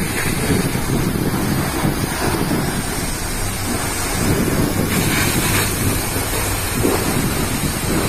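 A tall waterfall and its rocky stream: a steady, low rush of falling and tumbling water.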